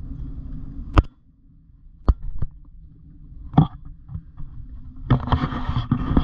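Fish and landing net being handled in an aluminum boat. Three separate sharp knocks come about a second apart, and a low rumble drops away at the first of them. About five seconds in, a denser stretch of rustling and clatter begins as the northern pike is worked out of the net.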